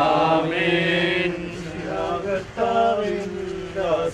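A man's voice chanting in long held notes, as in a sung funeral liturgy.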